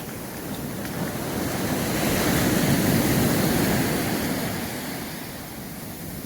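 Sea waves breaking on a sandy beach: the surf swells up over a couple of seconds, peaks, and washes back down.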